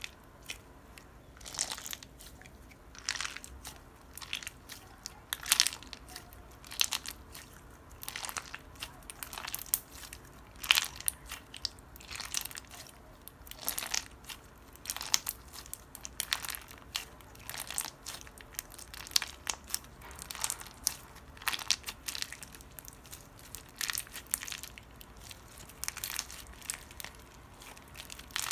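Crunchy clear slime being squeezed and pressed, giving off irregular short crunches and crackles, about one or two a second.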